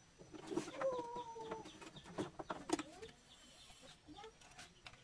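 A chicken clucking, one drawn-out call about a second in, among a few sharp knocks of hand tools set down and picked up on a wooden workbench.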